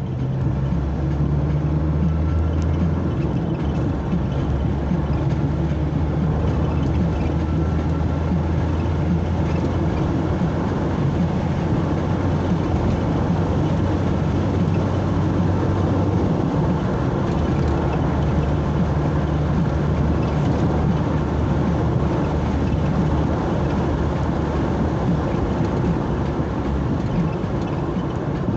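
Motor vehicle driving along a road: a steady engine drone with road and tyre noise.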